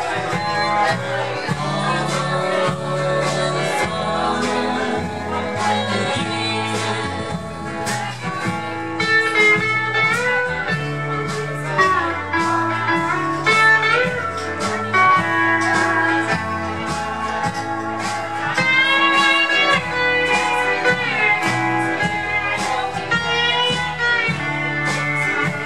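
A live roots band plays an instrumental passage with a steady beat: Fender steel guitar and harmonica carry bending melody lines over electric guitar, bass and drums.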